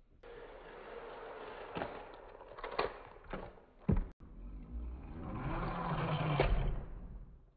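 Plastic toy train pieces clattering, with several sharp knocks. After a cut, a battery-powered Thomas & Friends toy engine's motor whirs as it runs along plastic track, growing louder, then fading near the end.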